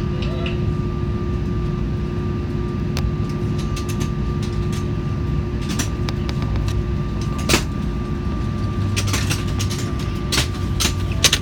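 Airbus A380 cabin noise on the ground: a steady low rumble with two steady hum tones, and scattered clicks and knocks from the cabin, the sharpest about halfway through and near the end.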